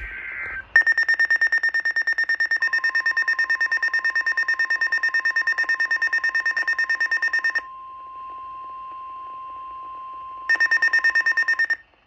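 Weather radio going into alert: a rapid, pulsing high beep over a steady single tone that starts a couple of seconds in, the NOAA Weather Radio 1050 Hz warning alarm tone. The beeping pauses for about three seconds while the steady tone carries on, then returns briefly before both stop. The alert is for a severe thunderstorm warning.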